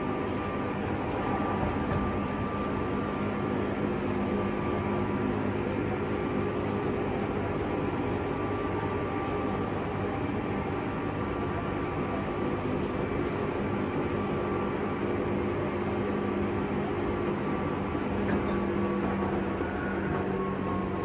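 Interior running noise of a JR West 201 series motor car at speed: steady rumble of wheels on rail with the hum of its DC traction motors and chopper control. One of the hum tones begins to fall slightly near the end.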